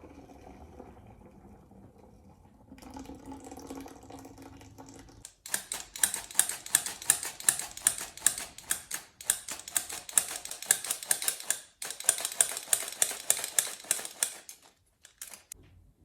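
A kitchen utensil clicking rapidly and evenly, about four sharp strokes a second, starting about five seconds in with a couple of brief breaks, then stopping near the end.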